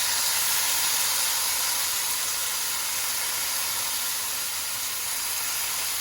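Sauce sizzling and hissing with steam as it hits a hot stir-fry pan of vegetables. The sizzle is steady and dies down slightly.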